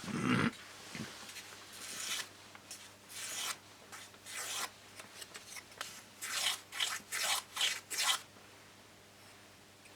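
A thump, then rubbing strokes on the wooden leading edge of a model aircraft rudder as it is bevelled on both sides: a few spaced strokes, then about six quick ones that stop a little after the middle.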